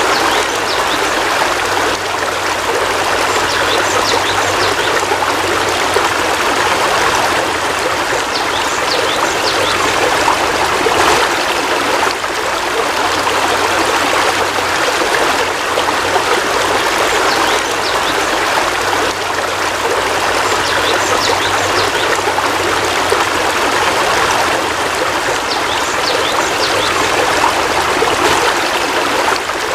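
Heavy rain falling steadily, an even, unbroken hiss of water, with faint short high chirps now and then.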